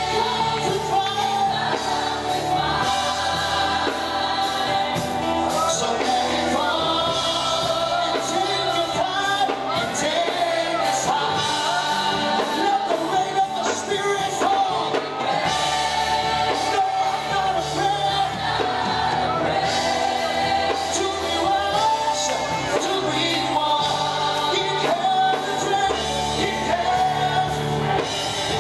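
Live gospel worship music: a group of singers singing together over a band, with low held notes changing every few seconds.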